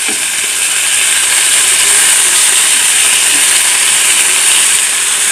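Fish pieces sizzling in hot mustard oil in a pan, a loud steady hiss of shallow-frying.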